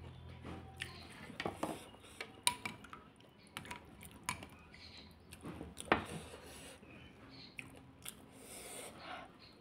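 Crisp, hollow puri shells being cracked open by hand, and a metal spoon clinking in a glass bowl of pani, giving a string of sharp crackles and clicks. The loudest click comes a little before the six-second mark.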